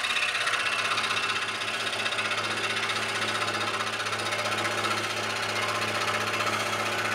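Scroll saw running, its reciprocating blade cutting through an aluminum piston blank: a fast, steady chatter over a low motor hum.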